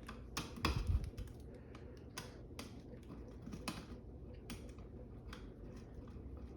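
Scattered small clicks and taps of a light switch and its wires being handled, with a dull knock and a few louder clicks in the first second.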